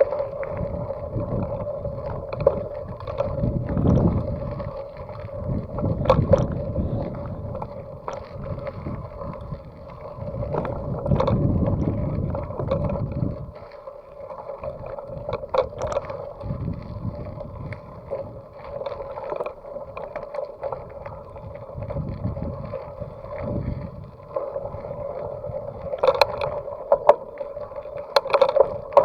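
Mountain bike being ridden on the road, heard through a bike-mounted action camera: wind rumble that swells and fades, tyre and road noise with a steady hum, and a few sharp knocks over bumps.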